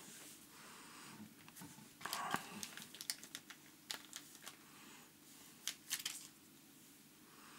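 Faint, scattered small clicks and rustles of fly-tying materials and tools being handled at the vise, with a brief denser rustle about two seconds in.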